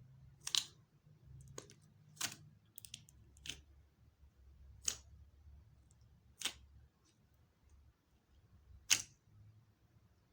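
Clear slime being mixed by hand, giving sharp clicking pops about eight times at irregular intervals, the loudest near the end.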